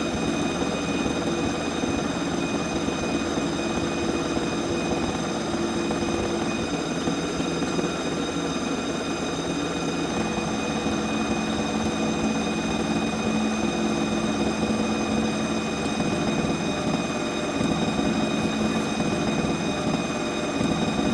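CNC vertical milling machine running a finishing pass on metal: a steady spindle whine made of several high-pitched tones over a dense cutting noise. The lower hum changes pitch about halfway through.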